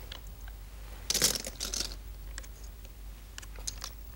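Go stones being handled on a vertical demonstration board: a few light clicks, and about a second in a dense clatter of just under a second as several stones are taken off and gathered in the hand. A steady low hum runs underneath.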